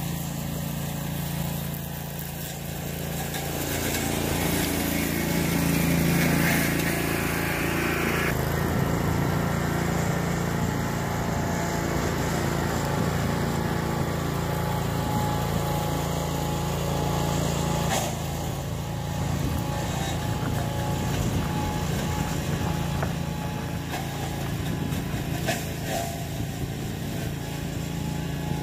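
Small engine of a homemade walk-behind brush mower running steadily. It grows louder with a slowly rising note for a few seconds, changes abruptly about eight seconds in, and shifts again about eighteen seconds in.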